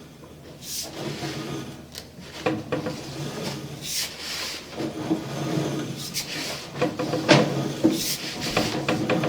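Sewer inspection camera's push cable being fed or drawn through the pipe, with irregular rubbing, scraping and light knocks.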